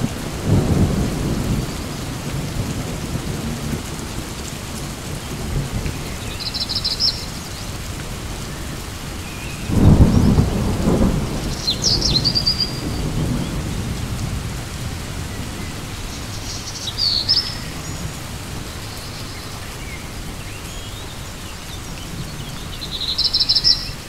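Steady rain falling through a thunderstorm. Thunder rumbles near the start and loudest about ten seconds in. Birds give short chirps now and then over the rain.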